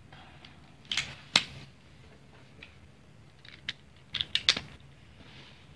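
Sharp plastic clicks from a freshly tensioned and lubed speed cube being handled: a couple of separate clicks, then a quick run of clicks about four seconds in.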